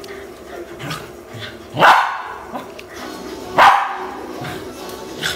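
A dog barking twice, two loud sharp barks a little under two seconds apart.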